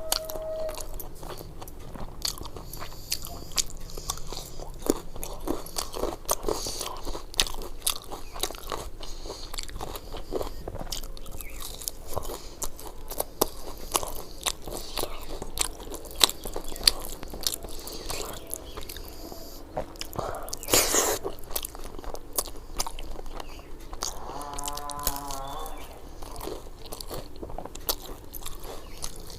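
Close-miked eating: chewing with wet mouth sounds and frequent crisp, crunchy bites, from a meal that includes fried spinach pakoras and brinjal fry. One louder crunch comes about two-thirds of the way through.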